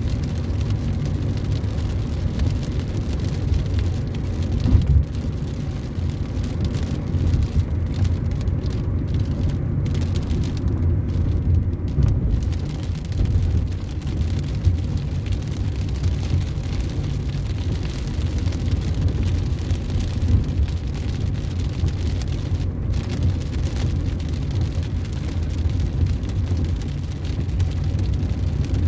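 A car driving on a wet road in the rain, with a steady low rumble of engine and tyres.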